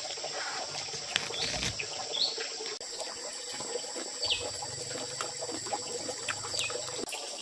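Outdoor ambience of insects droning steadily at a high pitch, with three short falling bird chirps scattered through it and a few faint ticks.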